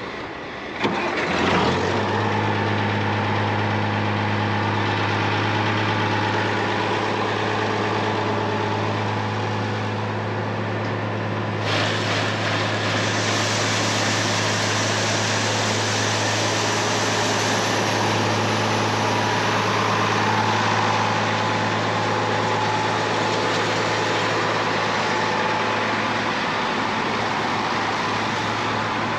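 International Harvester 786 tractor's six-cylinder diesel engine starting about a second in and then idling steadily. A steady high hiss joins about twelve seconds in.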